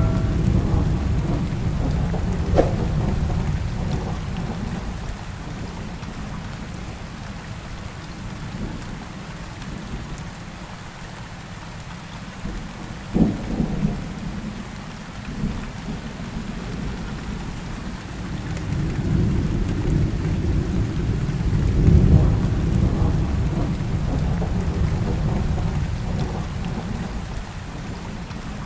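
Rainstorm soundtrack: steady rain with rolling thunder. The rumble swells and fades, loudest near the start and in a long roll in the last third, with a sharper crack a little before halfway.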